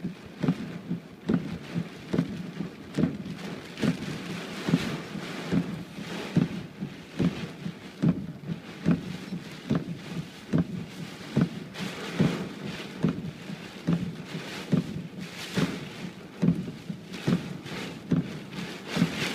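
Thunderstorm rain falling steadily, with a regular knock a little more than once a second.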